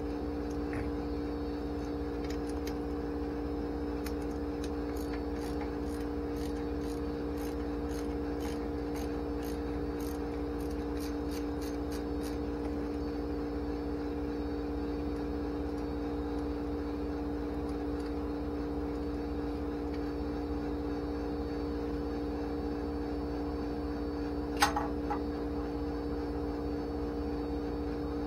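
Small ratchet wrench clicking as the fuel bowl bolts of a Holley 4150 carburetor are turned out, about two light clicks a second for several seconds, over a steady hum. One short sharp knock comes near the end.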